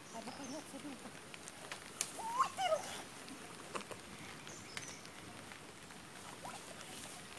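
Light clicks and rustles of a fishing net being handled, with a short two-part animal call about two seconds in that glides up and then down in pitch.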